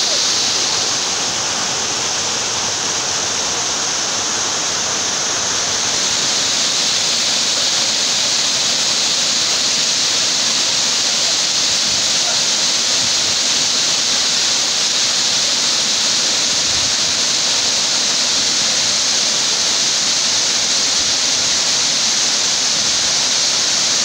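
Waterfall pouring in a wide sheet off a limestone ledge into a plunge pool: a loud, steady hiss of falling and splashing water, easing slightly for a few seconds near the start.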